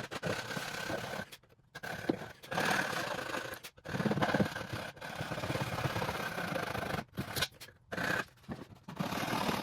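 Hand coping saw cutting pre-primed finger-jointed baseboard with a back-cut along the profile: quick rasping strokes, with a few short pauses.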